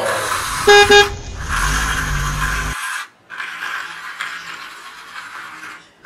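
Toy car's electronic horn beeping twice, short and high, about a second in, followed by a steady hiss with a low rumble that cuts off suddenly about three seconds in, then a fainter hiss.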